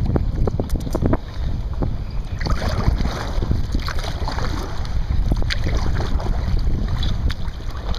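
Wind buffeting the microphone in a heavy low rumble, over irregular splashes and sloshing of water around a sea kayak being paddled.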